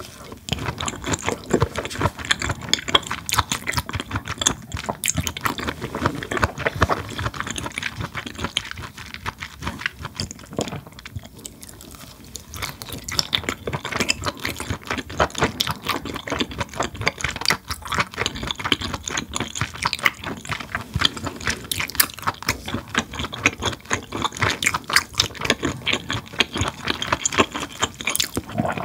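Close-miked wet chewing of scallop topped with sea urchin roe and salmon roe: a steady run of small sticky, squishy mouth clicks.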